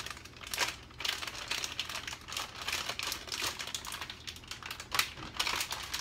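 Clear plastic bag of mini sweet peppers crinkling and rustling as it is handled with both hands, in irregular crackly bursts.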